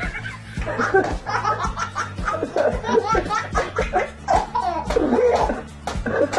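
A baby laughing again and again, in long runs of giggles, over background music with a steady beat.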